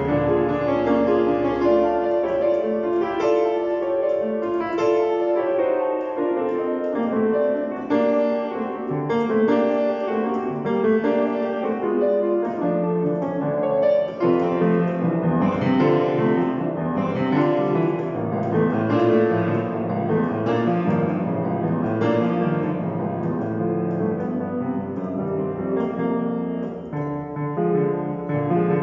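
Grand piano played solo: a busy, unbroken passage of many notes at a fairly even loudness.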